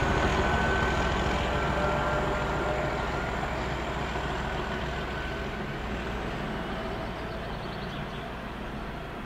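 Class 37 diesel locomotives' English Electric V12 engines rumbling steadily and fading away as the train recedes, with faint high tones over the rumble.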